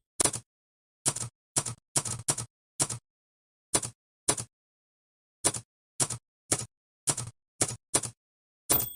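Manual typewriter keys striking one at a time in an irregular rhythm, with short pauses between runs of letters. Near the end a key strike comes with a clear ringing bell that fades slowly, the typewriter's margin bell.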